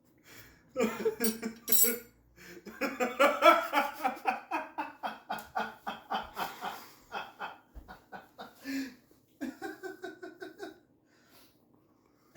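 A woman laughing in three bouts of quick, repeated ha-ha pulses. The longest bout starts about three seconds in and lasts several seconds.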